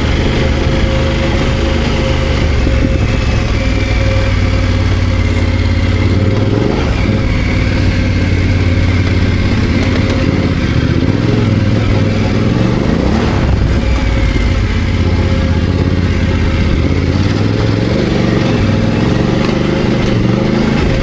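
BMW F900GS's parallel-twin engine running continuously while riding off road, its pitch rising and falling several times as the throttle opens and closes.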